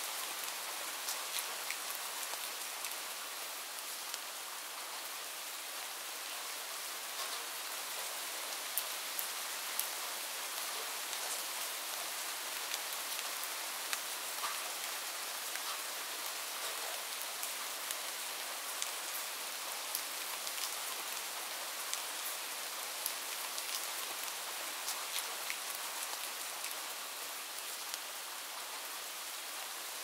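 Steady hiss with many light ticks and crackles scattered through it; no distinct bird calls stand out.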